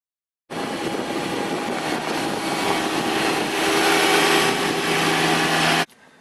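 John Deere garden tractor's engine running under load as the tractor is driven, backing up on the new reverse pedal. The sound starts suddenly about half a second in, grows somewhat louder midway, and cuts off abruptly near the end.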